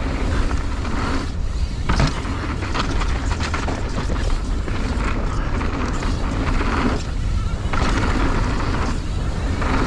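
Mountain bike descending a dirt jump line: the rear freehub buzzes while coasting, breaking off twice, over wind rumble on the mic and tyres rolling on dirt. A sharp knock about two seconds in, typical of a jump landing.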